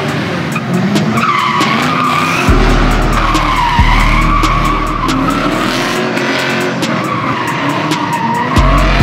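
BMW E30 drift car spinning donuts: its engine held at high revs while the rear tyres spin and squeal, a wavering screech that rises and falls as the car circles.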